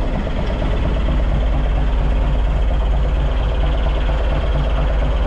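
Fishing boat's engine running steadily, a low even hum with a fine regular beat.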